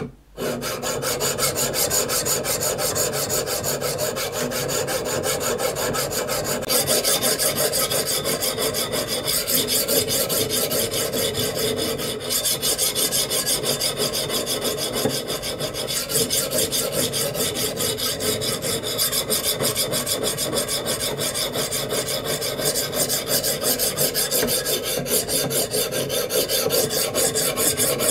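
Coarse green silicon carbide sharpening stone on a guided knife sharpener, stroked rapidly back and forth along a steel knife blade wetted with a little oil: continuous grinding strokes as the bevel is levelled.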